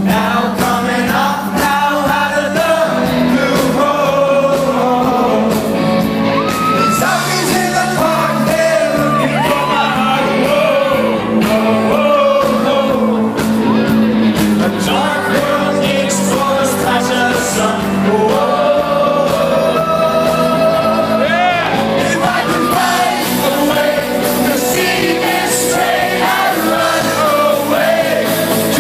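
Rock band playing live, with a male lead vocal over guitars and drums.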